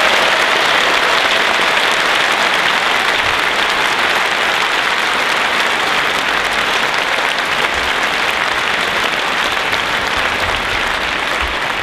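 A large audience applauding steadily at the end of a speech.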